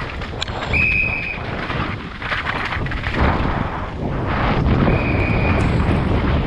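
Wind buffeting a helmet-mounted camera's microphone during a fast downhill mountain bike descent, over tyres rolling on wet dirt and gravel with many small knocks from the bike over rough ground. Two short high-pitched squeals cut through, about a second in and again about five seconds in.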